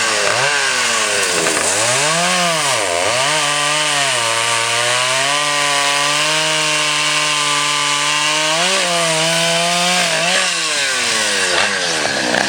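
Two-stroke chainsaw cutting wood. Its engine pitch rises and falls several times over the first few seconds, then holds steady while cutting, and wavers again near the end.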